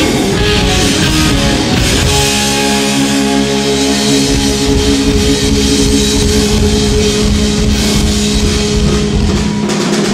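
Rock band playing live, with distorted electric guitars and bass over a drum kit. About two seconds in, a held guitar chord rings out over steady drumming.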